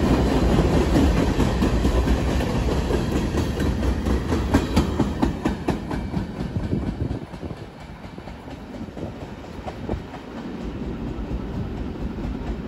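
Freight train's cars rolling past at speed: a low rumble with the clickety-clack of wheels over rail joints. The sound fades away about halfway through as the last car passes and the train moves off.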